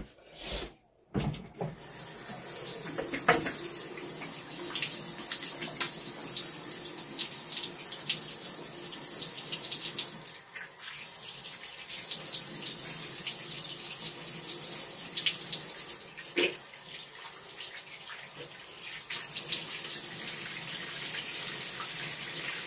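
Bathroom sink faucet running, with hands being washed under the stream. The water starts about two seconds in, after a few short clicks and knocks.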